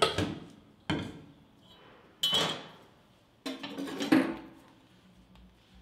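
Stainless steel kitchen bowls and utensils being moved and set down on a steel counter: about five clanks and knocks a second or so apart, some ringing briefly.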